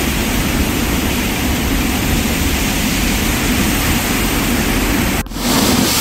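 Steady rush of water released through the open spillway gates of Somasila Dam, briefly dropping out about five seconds in.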